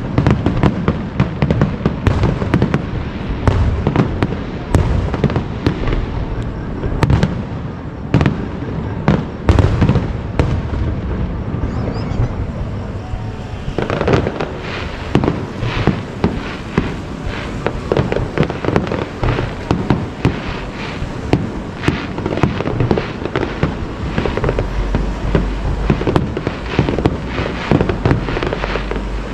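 Aerial fireworks display: a dense, unbroken run of shell bursts and bangs, several a second, one after another.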